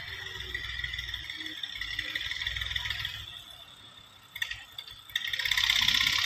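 Massey Ferguson MF240 tractor's three-cylinder diesel working in the distance while ploughing, a low steady engine rumble that fades about three seconds in as the tractor moves away. A click comes about four seconds in, then a louder noise rises near the end.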